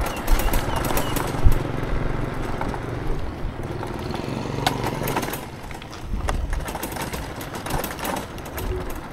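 Street traffic with wind rumbling on the microphone. A motor vehicle's engine runs close by from about a second and a half in for a few seconds.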